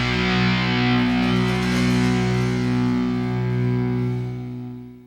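Final distorted electric guitar chord of a punk rock song left ringing out, then fading away near the end.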